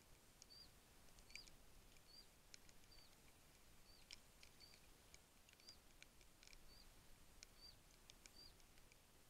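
Near silence with a faint, short, high chirp from a small animal, repeated at an even pace about every second, and a few faint clicks scattered between the chirps.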